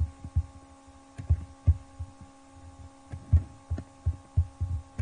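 Steady electrical hum on the recording, with about a dozen irregular, dull low thumps scattered through it.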